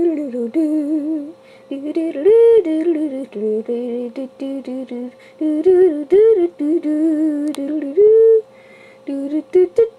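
A voice humming a wordless tune in short phrases with gliding pitch, broken by brief pauses. A faint steady tone runs underneath.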